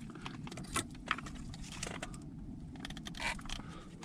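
Small, irregular clicks, taps and scrapes of hands and tools handling small parts on an RC car's electronics, with a louder rattle about three seconds in.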